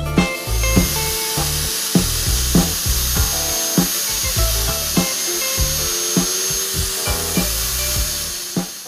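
Background music with a steady beat, over a steady high hiss with a thin high-pitched whine that starts just after the beginning and fades out near the end.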